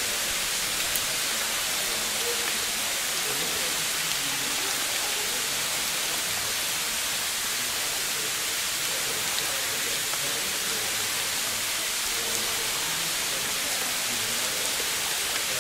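Steady, even hiss at a constant level, with faint indistinct murmurs that come and go beneath it.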